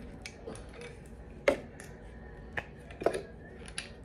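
Several sharp clicks and knocks from a small gadget being handled and pressed together. The loudest click is about one and a half seconds in, and a few lighter ones follow.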